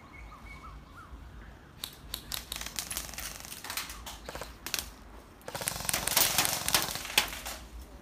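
BB guns firing: scattered sharp shots starting about two seconds in, then a dense, rapid burst of clicks lasting about two seconds near the end.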